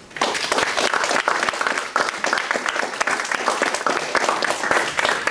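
Audience applauding: many hands clapping together, starting suddenly and cutting off suddenly about five seconds later.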